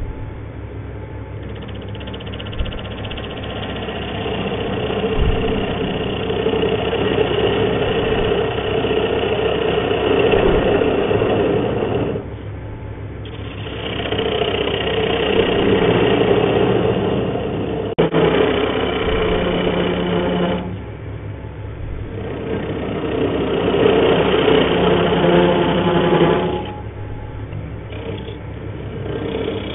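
Wood lathe running at low speed with its steady motor hum, while a turning tool cuts into the face of a spinning hardwood blank, making a rough scraping, shaving noise. The cutting comes in three long passes, broken by short pauses about 12 and 21 seconds in.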